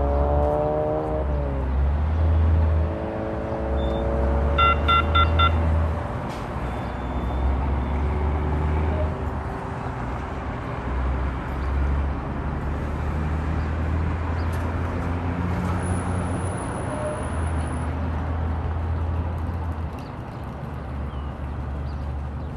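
Electric whine from a Kinki Sharyo light rail train, falling in pitch over the first second or so as the train comes to a stop, over the steady rumble of road traffic. About five seconds in there is a short run of repeated electronic beeps.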